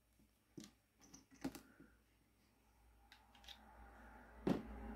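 A few faint, scattered plastic clicks and taps from a small plastic Transformers Core Class action figure being turned over in the fingers, the loudest click near the end, with a low hum coming up over the last couple of seconds.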